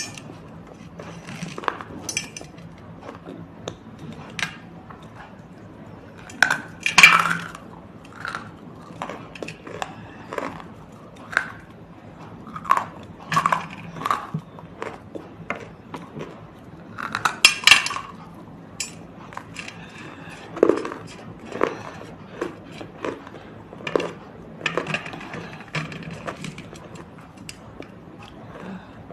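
Close-up crunching: something brittle being bitten and chewed in irregular crisp cracks, with the loudest clusters about 7 and 17 seconds in.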